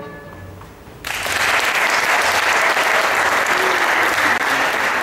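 The last of the backing music dies away, then audience applause breaks out suddenly about a second in and holds steady.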